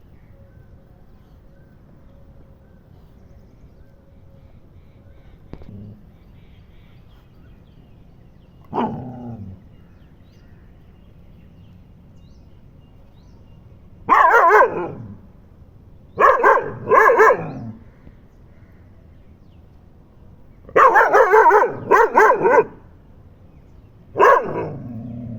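Dog barking: a single bark, then a run of loud barks, some in quick pairs, each falling off at the end.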